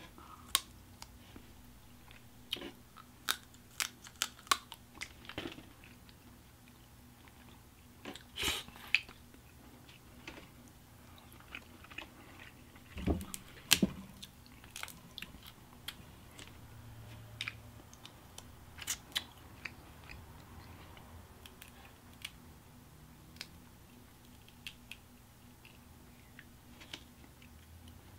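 Cooked crawfish shells being cracked and peeled by hand, mixed with close-up chewing: scattered sharp snaps and crunches, with a louder cluster about halfway through.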